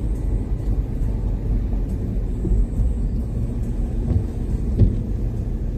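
Car driving along a road, a steady low rumble of engine and tyres with a couple of faint knocks about four to five seconds in.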